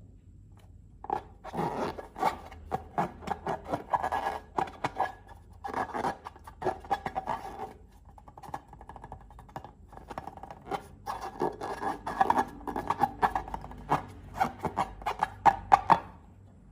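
Slime being worked by hand, with balloons: wet clicking and scraping in three spells, the longest near the end, with quieter gaps between.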